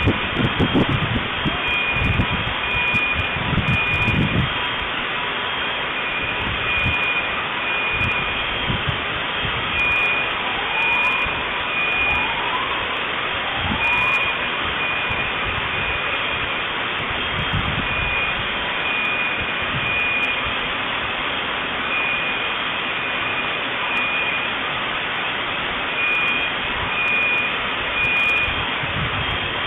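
Steady rushing noise with a high electronic alarm tone beeping on and off in a repeating pattern. Low thuds sound in the first few seconds, and three short rising chirps come about ten to fourteen seconds in.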